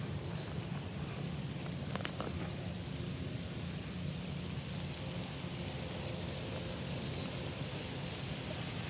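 Light rain just starting to fall: a steady hiss with a low rumble underneath and a few faint drop ticks about two seconds in.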